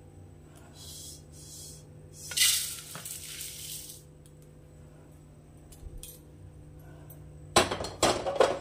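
Roasted flattened rice (chire) poured from a wok into a steel bowl, a dry rushing rattle of flakes starting about two seconds in and lasting over a second. Near the end, a burst of metal clatter as the wok is set back on the gas stove.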